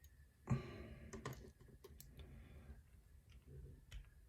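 Faint clicks and light handling noise of small metal lock pins and tools on a work surface while a pin-tumbler lock core is taken apart, with a soft knock about half a second in.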